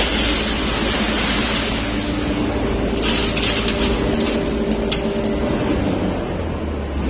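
Hydraulic three-ram metal baler running: a steady mechanical hum under a broad hiss, with a few short ticks about three to five seconds in.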